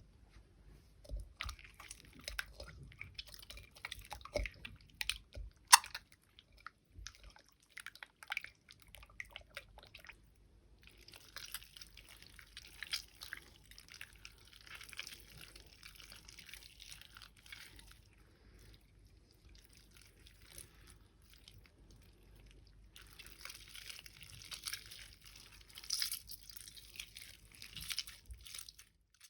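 Homemade PVA-glue slime being squished and pulled: scattered wet squelches and sharp pops over the first ten seconds, then longer stretches of continuous sticky squishing with a pause between them.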